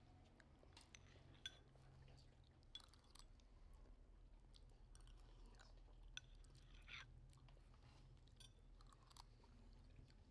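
Near silence with faint eating sounds: metal spoons clicking now and then against small glass bowls, and soft chewing, over a low steady hum.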